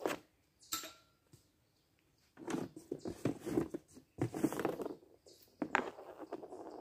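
Hockey stick and pucks clacking on a homemade shooting pad: a couple of sharp clacks near the start, then three bursts of quick taps and knocks from a bit over two seconds in, as the puck is handled and shot.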